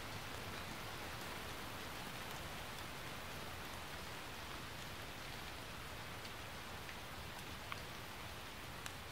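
A steady, even hiss like light rain, with scattered faint ticks and two sharper ticks near the end.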